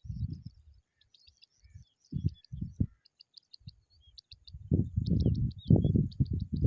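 Small birds chirping in rows of short, high notes, several a second. Low, muffled thuds and rumbling come and go under them and grow loud and nearly continuous about two-thirds of the way in.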